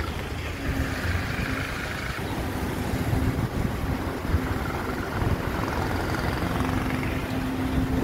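Diesel engine of a concrete mixer truck running, a steady low rumble with a thin hum that comes and goes.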